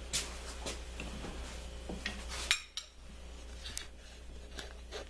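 Metal hand tools clinking and rattling as they are handled: a ratchet, sockets and a breaker bar knocking together, with the sharpest clink about two and a half seconds in.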